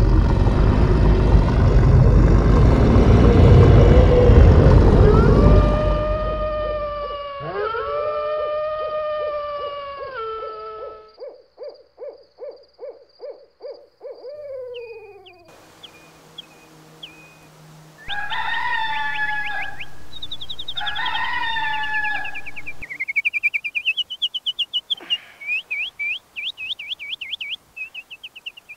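Low, dark rumbling music fades out into owl-like hooting and a rapid pulsing call. About eighteen seconds in, a rooster crows twice, and then songbirds start chirping quickly.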